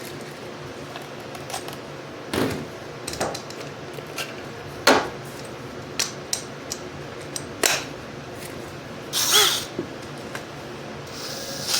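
Cordless drill battery being swapped: scattered clicks, knocks and clatter of the pack and tools being handled, with a short scraping slide a little after nine seconds.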